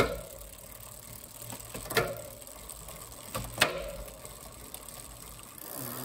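Philodo H8 ebike's chain and rear derailleur running over a newly fitted 7-speed freewheel while the crank is turned by hand. Three sharp clicks, at the start, about two seconds in and about a second and a half after that, come as the gears are shifted.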